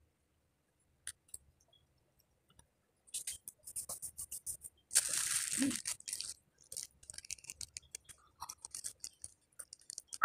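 A person chewing raw bitter gourd and chili with her mouth close to the microphone: irregular crunchy, wet clicks that begin about three seconds in. About five seconds in comes a longer hiss of breath, drawn in through bared teeth against the chili's heat.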